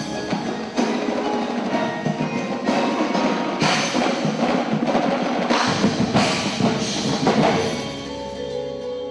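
Indoor drumline playing: marching snares, tenor drums and bass drums drive dense, fast rhythms over the front ensemble's mallet keyboards. The drumming peaks in the middle, then eases off near the end, leaving sustained pitched notes.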